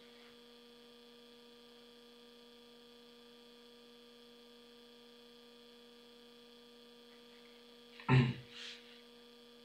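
Faint, steady electrical mains hum with several steady higher tones above it. About eight seconds in, a brief vocal sound stands out loudly against the hum.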